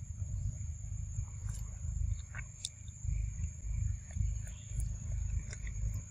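A macaque chewing papaya, with small scattered clicks and smacks, over a steady high-pitched insect drone and an uneven low rumble on the microphone.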